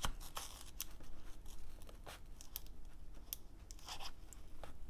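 Spatula prying underneath a MacBook Air speaker, with irregular small clicks and crackles as the adhesive tape holding it gives way.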